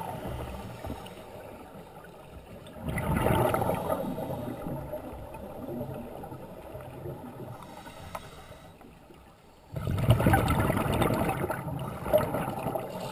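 Underwater sound of a scuba diver breathing through a regulator: two loud rushes of exhaled bubbles, about 3 seconds and 10 seconds in, each lasting a second or two, with quieter bubbling between.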